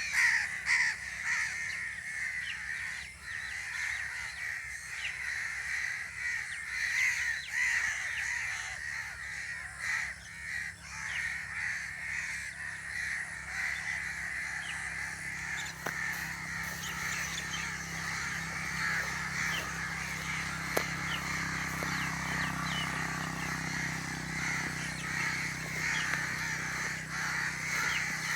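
Many birds calling continually, their calls overlapping; a low steady hum grows louder in the second half.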